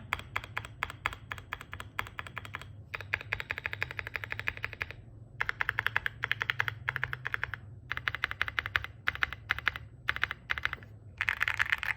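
Fast typing on a QK65 mechanical keyboard with JKLP Holy Panda Pro tactile switches, a POM plate and CAT-profile keycaps: a thocky keystroke sound that pops like firecrackers, in runs of rapid keystrokes broken by short pauses.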